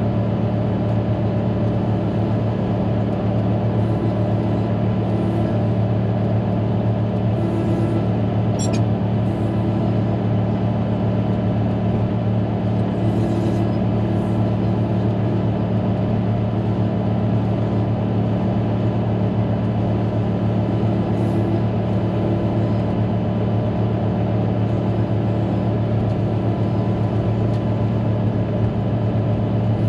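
Caterpillar motor grader's diesel engine running steadily, heard from the operator's seat, with a deep, even drone.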